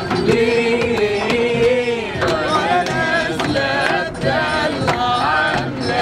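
A small group of voices singing an Egyptian song together in unison, holding long, wavering notes, with sharp taps keeping a steady beat.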